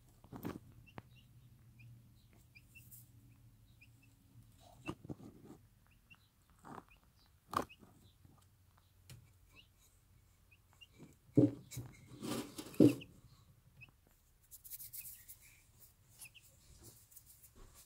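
A broody bantam hen clucking low over her newborn chicks, with tiny faint chick peeps and rustling of straw and feathers as the chicks settle under her. The loudest sounds are a few low clucks a little past the middle, and the rustle grows near the end.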